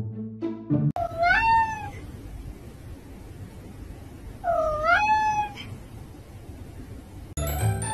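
Domestic cat meowing twice, about three seconds apart, each call rising in pitch and then levelling off. The meow sounds odd enough that it does not seem to be the cat's real meow.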